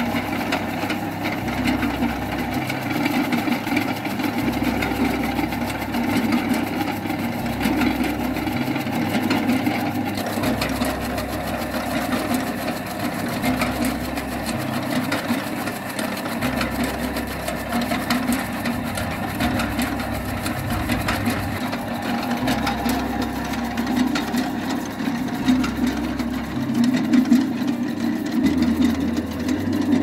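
A 1.5 HP heavy-duty electric chaff cutter running steadily, its flywheel blades chopping Super Napier grass stalks as they are fed into the chute, with a fast, even mechanical chatter.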